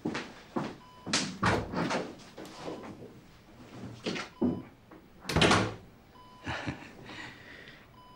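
A room door being closed behind someone leaving, heard as a series of knocks and thuds; the loudest thud comes a little past five seconds in.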